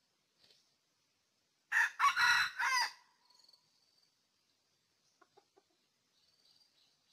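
Red junglefowl rooster crowing once about two seconds in: a short, clipped crow in three or four quick parts. A few faint clucks follow about five seconds in.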